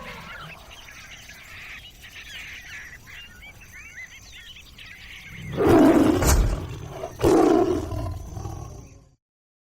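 Two loud big-cat roars, about a second and a half apart, over faint bird chirps. The sound cuts off suddenly just before the end.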